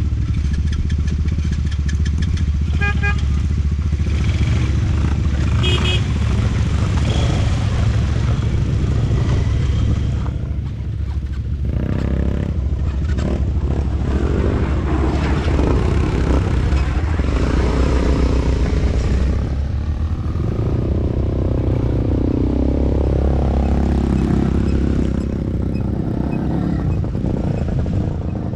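ATV engine running as it is ridden, loud and steady, easing off briefly about ten seconds in and then picking up again, with its pitch shifting up and down later on.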